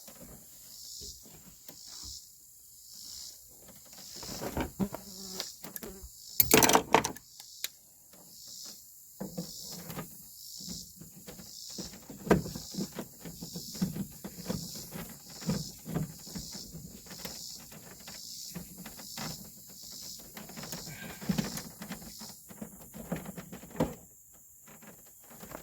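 A socket ratchet clicking as 14 mm door bolts are worked loose, with scattered knocks and one louder clunk about six and a half seconds in. Crickets chirp steadily in the background.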